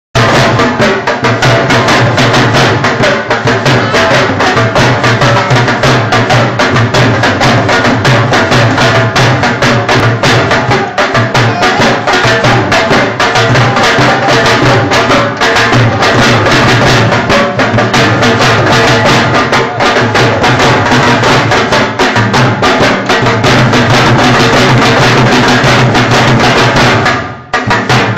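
Dhol drums beaten with sticks in a fast, driving attan rhythm, very loud, with a brief break near the end.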